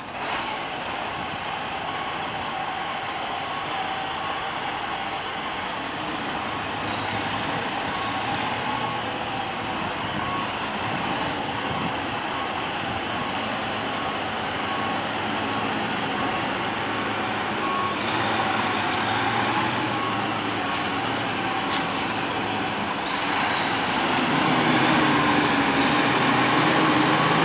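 Diesel semi-truck tractor hauling a shipping container at crawling speed, its engine running with rises and falls in revs that grow louder near the end as it nears. A reversing alarm beeps steadily through the first two-thirds, then stops.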